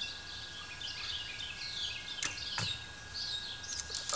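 Bow shot: the bowstring snaps on release about two seconds in, and about a third of a second later the arrow strikes the target with a thud. Birds chirp throughout.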